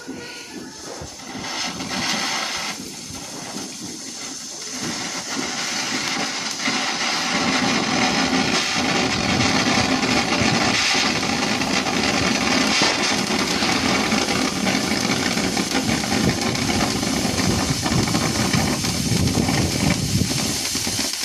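Ground firework fountain spraying sparks: a loud steady hiss with crackling through it, building up over the first several seconds and then holding.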